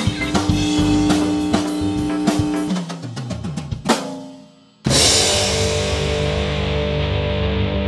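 Upbeat band music with drum kit and guitar that fades out about four seconds in, then a sudden loud crash of a chord about five seconds in that rings on and slowly dies away.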